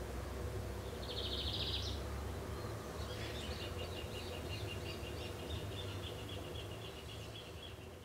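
Chalk-browed mockingbird calling: a short buzzy note about a second in, then from about three seconds a long, fast series of repeated notes that fades near the end. A steady low background rumble runs under it.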